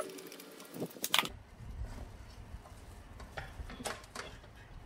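Light clicks and knocks of the metal X-ray tube assembly and its screws being handled in the housing: two sharp clicks about a second in, then a few softer taps over a faint low rumble.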